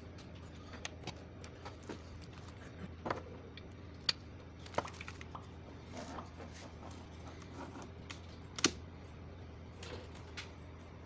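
Scattered light clicks and knocks of handling a network switch's plug-in power adapter, its cable and packaging: about a dozen irregular taps, two sharper ones about four and nine seconds in, over a faint steady low hum.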